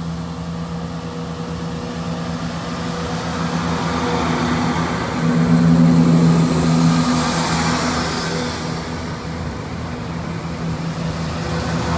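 Class 171 Turbostar diesel multiple unit pulling away from a station platform, its underfloor diesel engines running under power with a steady low hum. It grows louder to a peak about halfway through as the carriages pass, then eases.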